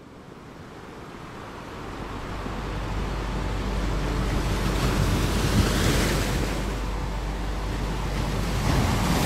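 Ocean surf: waves washing and breaking, fading in from silence and swelling about five to six seconds in and again near the end, over a steady low rumble.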